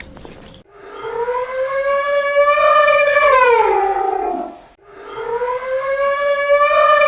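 Dog howling: two long howls of about four seconds each, each rising slowly in pitch, holding, then falling away at the end.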